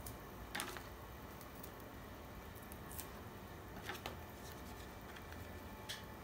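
A few soft, short rustles and crinkles of a folded paper sheet being handled, heard about half a second in, twice around the middle and once near the end, over quiet room tone.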